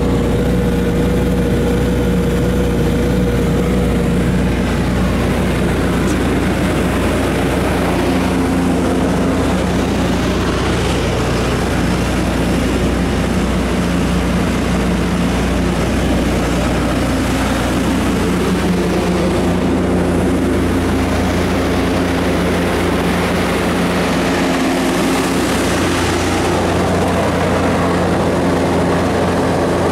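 Kubota SQ3330 diesel generator set, its Kubota V3300 four-cylinder diesel running steadily at 1800 rpm under about 30 kW of load from a load bank.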